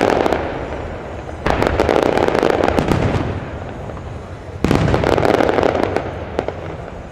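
Aerial firework shells bursting overhead: the crackle of one burst dies away at the start, then two more go off, about a second and a half in and about four and a half seconds in. Each is followed by dense crackling that fades over a second or two.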